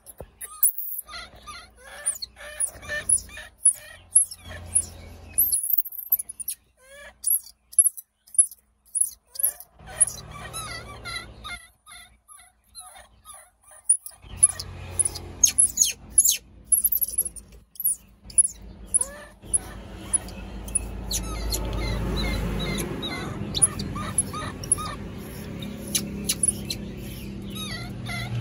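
Baby macaques crying: series of short, high-pitched squeals and whimpers in quick succession, breaking off into quiet stretches twice and then starting up again.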